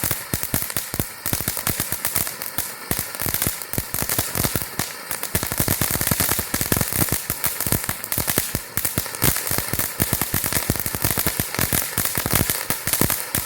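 Large California Rocket Fountain firework (TNT consumer fountain) in its crackle effect: a dense, continuous stream of rapid, sharp crackling pops.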